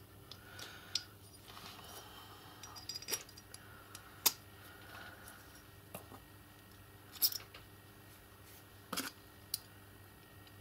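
Small metal parts of a miniature-locomotive coupler, a brass coupling head and a steel arm, clicking and tapping together as they are handled and fitted, with light scraping between. There are about seven sharp separate clicks.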